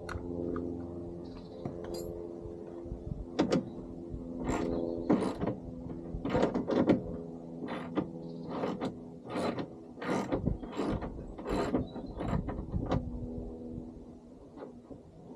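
Ratchet wrench clicking in short strokes as the bolts holding the car door's window are undone, over a steady low hum.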